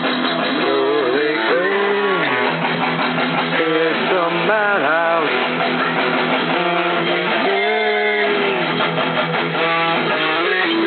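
Guitar-driven rock music playing, with strummed electric guitar.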